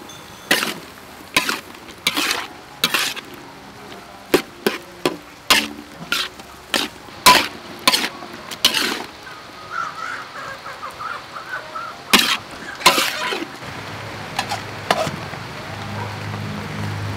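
Metal spatula scraping and knocking against a steel wok in irregular strokes as sliced Pedro cactus flower stalks are stir-fried, with a light sizzle underneath.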